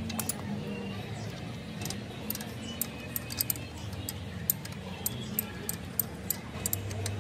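Irregular sharp metallic clicks and clinks of hand tools against metal parts, about fifteen in a few seconds with a quick cluster near the end, over a low steady hum.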